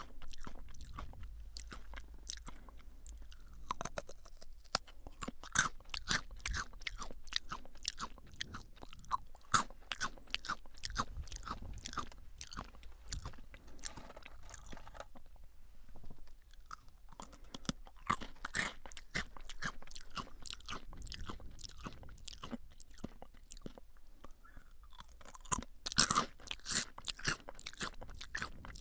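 Close-miked crunching and chewing of Jagabee lightly salted potato sticks: a dense run of crisp crackles, with a short lull about halfway through and a louder burst of crunches near the end.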